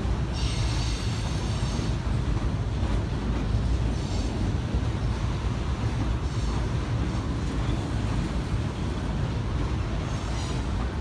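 Covered hopper cars of a CSX unit grain train rolling over an elevated steel trestle: a steady low rumble of wheels on the steel structure, broken a few times by brief high-pitched wheel squeals.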